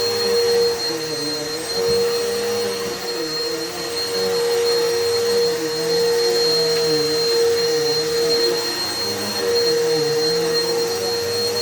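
Vacuum cleaner running continuously: a steady motor hum with a high whine over a rushing air noise, its lower tones wavering slightly.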